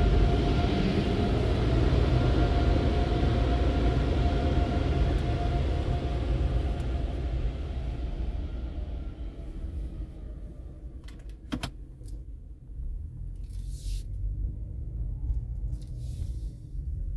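Car wash tunnel machinery heard from inside a car: a steady rumble with a whine that fades away over the first half as the car pulls out of the tunnel, leaving a quiet cabin with a few sharp clicks and two brief hisses.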